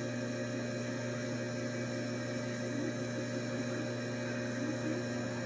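Steady hum of running machinery, several constant pitches held without change.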